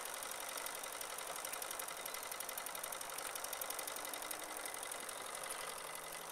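Single-cylinder model steam engine running on test, with a fast, even chuffing beat over a steady hiss of steam.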